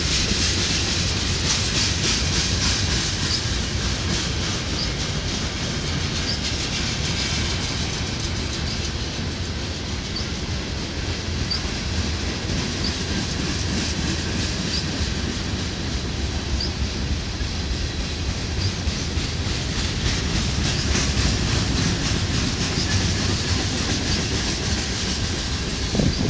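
Freight train of loaded tank cars and boxcars rolling steadily past, with wheels clattering over the rail joints and short high squeaks about every second and a half.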